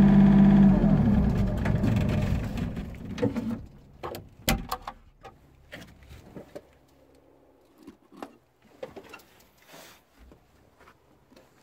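Yanmar B37 mini excavator's diesel engine running, then shut off about a second in, winding down and falling in pitch over a couple of seconds. After that come scattered clicks and knocks, the sharpest about four and a half seconds in.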